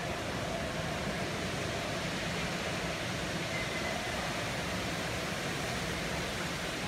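Steady, even hiss of an airport terminal atrium's background noise, like ventilation, with no distinct events.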